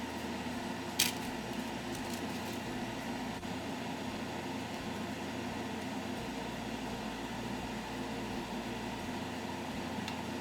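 Steady whirring hum of a household fan or appliance motor, with a single sharp click about a second in.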